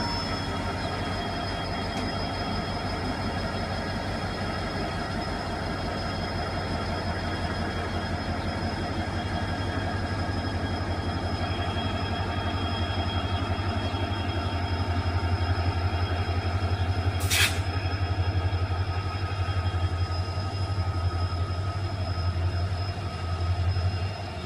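WDP-4 diesel locomotive with its EMD 16-cylinder two-stroke engine, running as the train pulls away: a deep, steady, pulsing rumble with faint steady high whining tones over it. A brief sharp noise cuts across about seventeen seconds in.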